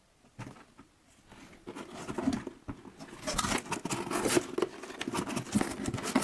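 Packaging being handled during an unboxing: irregular rustling, crinkling and clicking that starts about half a second in and grows busier and louder from about two seconds in.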